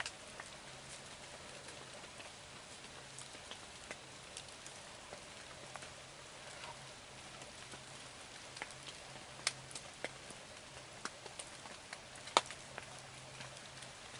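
Light rain falling steadily, heard from inside a hunting blind, with scattered sharp ticks of single drops landing.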